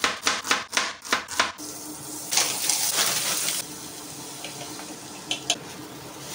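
Knife chopping an onion on a cutting board, quick even strokes about three a second for the first second and a half. Then food sizzling in a frying pan, loudest for about a second from two and a half seconds in, carrying on more quietly as beaten egg goes in over the vegetables and is stirred, with a few light knocks near the end.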